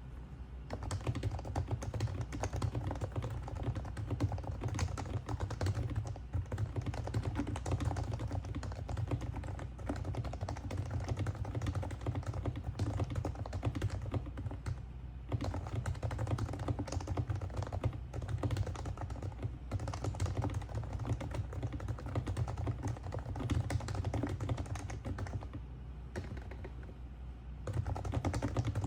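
Typing on an HHKB Pro 3 keyboard with Topre electrocapacitive switches, lubed and cushioned with sorbothane inside the case: a fast, continuous run of soft key strokes, with a brief pause about halfway and another shortly before the end.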